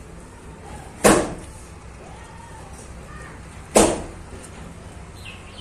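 Two loud, sharp bangs about two and a half seconds apart, each dying away within half a second.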